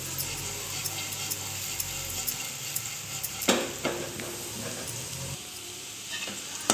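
Sliced bitter gourd frying in oil in a pan: a steady sizzle, with a few sharp scrapes and clicks of the spatula against the pan about halfway through.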